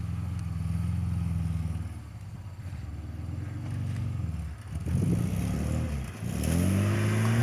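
Modified Suzuki Escudo's engine running off-road, holding a steady note, easing off, then revving up sharply near the end and staying high.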